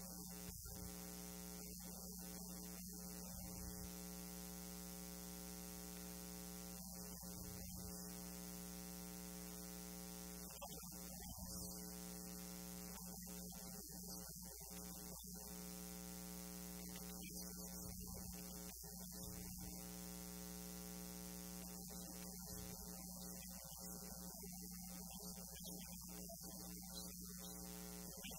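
Steady electrical mains hum: a constant low buzz with a ladder of even overtones, unchanging throughout.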